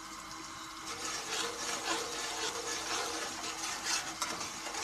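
Chopped onions sizzling in hot oil as they brown, with a slotted metal spatula scraping and stirring them around the metal pan, louder from about a second in.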